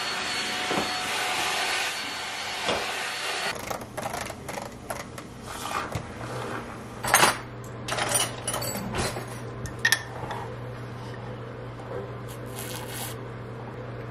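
A small vacuum cleaner runs with a steady whine and switches off about three and a half seconds in, then glass jars and lids clink and knock on the counter, loudest around seven and ten seconds in, over a low steady hum.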